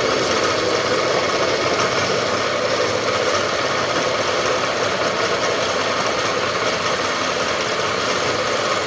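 Bridgeport milling machine running, its end mill cutting a slot in metal: a steady, even machining noise.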